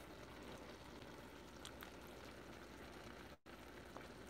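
Near silence: a faint steady hiss with a couple of faint ticks, cut by a brief dropout to total silence about three and a half seconds in.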